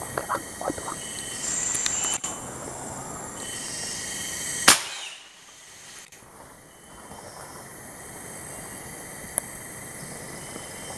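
A single rifle shot about halfway through, one sharp crack, over a steady high-pitched hum of forest insects.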